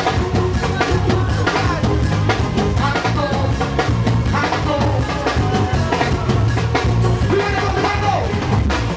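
Band music with a drum kit and a heavy bass line keeping a steady beat.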